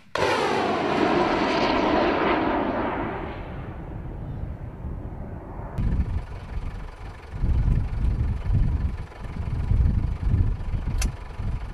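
FIM-92 Stinger missile's rocket motor burning as the missile flies off after launch: a loud rushing hiss whose pitch falls as it recedes, fading over about four seconds. After that, an uneven low rumble with gusts, and one sharp click near the end.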